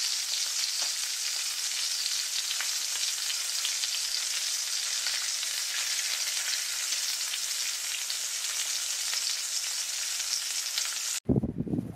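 Food sizzling steadily as it fries in hot oil in a pan, with a few faint pops; it cuts off abruptly near the end.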